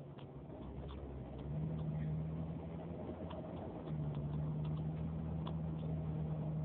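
Car engine running under way, heard from inside the cabin: a steady low drone over a deeper rumble that breaks off briefly about halfway and then resumes, with a few faint scattered clicks.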